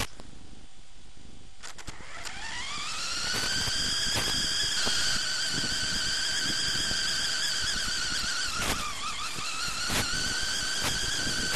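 Onboard sound of a radio-controlled off-road buggy's motor, picked up on the car: it rises in pitch about two seconds in and then holds a steady high-pitched note. Around three-quarters of the way through the note dips briefly, with a few knocks as the car bumps over rough ground.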